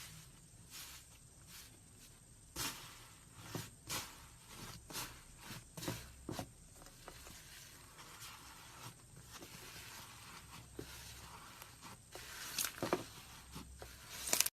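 Slime being squeezed and stretched by hand, giving irregular soft sticky clicks and pops. A cluster of sharper, louder pops comes near the end.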